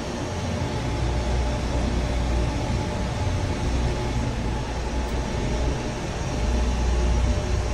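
Idling truck engine: a steady hum with a deep rumble underneath.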